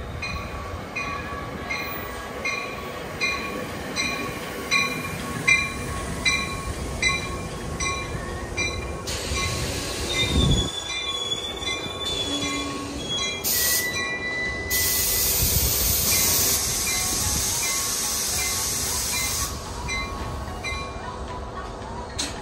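NJ Transit commuter train: a bell rings at an even pace, roughly one strike every three-quarters of a second, for about the first nine seconds. Then a high squeal comes from the wheels or brakes, followed by a loud hiss of released air lasting several seconds.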